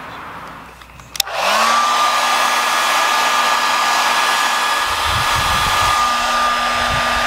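Handheld hair dryer switched on with a click about a second in, its motor whine rising quickly to a steady pitch, then running steadily with a loud blowing rush. Low rumbling joins in the second half.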